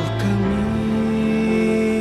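Gospel male quartet song: a male voice holds one long note over a soft instrumental backing.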